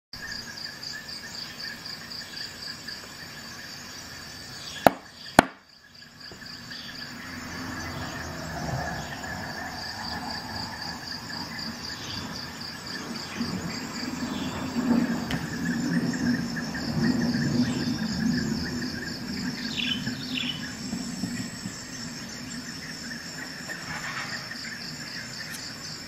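Rustling and rubbing of a black cloth worked between the fingers, loudest about halfway through. Under it runs a steady, high, evenly pulsing chirp like an insect trill, and two sharp clicks come about five seconds in.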